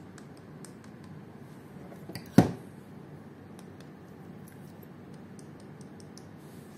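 Small clicks and ticks from a plastic spinning fishing reel being handled and fiddled with, and one sharp knock about two and a half seconds in.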